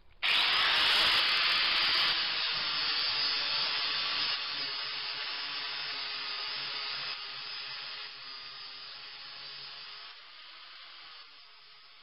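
Angle grinder grinding a clamped strip of mild steel to shape: a loud, even grinding hiss that starts abruptly and fades away in steps over about ten seconds.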